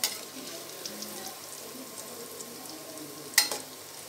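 Mathri deep-frying in hot oil in a steel kadhai, a steady sizzling hiss. Two sharp metal clinks, at the start and about three and a half seconds in, as the metal spoon knocks against the kadhai while the mathri are turned.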